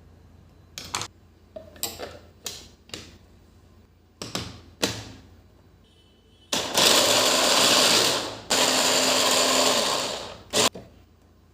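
Several clicks and knocks, then a small electric motor appliance runs loudly twice, about two seconds each with a short break between, followed by one more knock.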